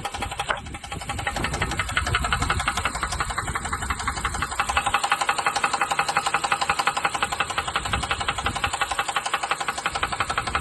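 2016 Honda Pilot's 3.5-litre V6 running with a rapid, steady knock. The knock is the sign of a failing engine bearing shell.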